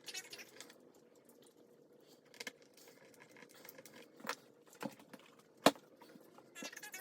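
Hands handling small hard parts and tools: scattered light clicks and brief scrapes, with one sharp click about five and a half seconds in.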